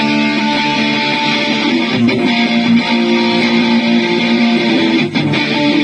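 Electric guitar played through a Line 6 POD Go multi-effects processor: chords strummed and left ringing, with new strums about two seconds and five seconds in.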